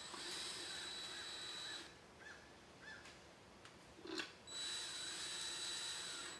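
Cordless drill with a screwdriver bit running screws into a hot tub pump's housing, snugging them up without full tightening. It runs in two steady whining bursts of about two seconds each, the second starting about four and a half seconds in.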